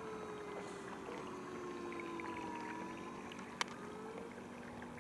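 RC model fireboat running across a lake: a steady low hum with a slowly falling, then rising tone over a haze of water and outdoor noise. A single sharp click about three and a half seconds in.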